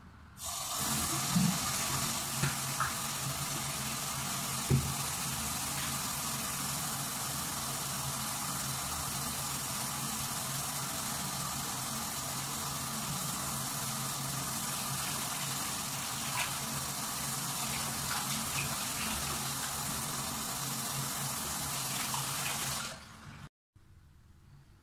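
Bathroom tap running steadily into a sink basin, with a few small knocks in the first few seconds. The water sound cuts off suddenly near the end.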